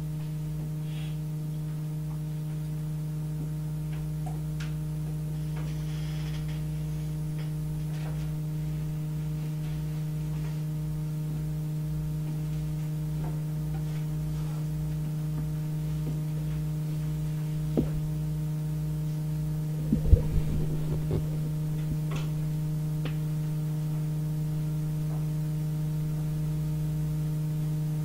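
Steady electrical hum with evenly spaced overtones and a faint regular low pulsing beneath it. A sharp click well into the stretch, then a brief cluster of knocks a couple of seconds later.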